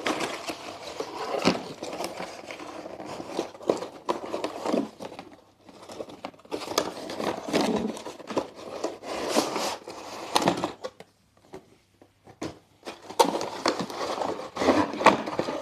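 A product box being opened and its packaging and contents handled: irregular rustling, scraping and small knocks, with a short pause about eleven seconds in.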